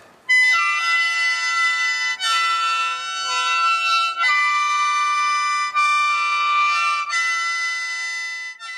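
Lusheng, the Miao bamboo free-reed mouth organ, blown in a series of held chords of several notes at once. The chords shift every second or two, and the playing fades near the end.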